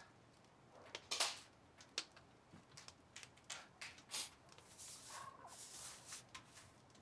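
Soft handling noises: a scatter of small clicks, knocks and rustles as a person rummages for and picks up a photograph, the loudest about a second in, with a brief squeak a little after five seconds.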